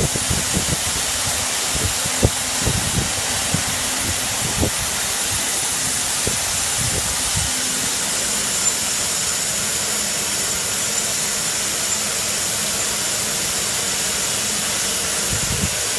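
Screen printing frame washing machine running: a steady hiss with scattered low knocks in the first half.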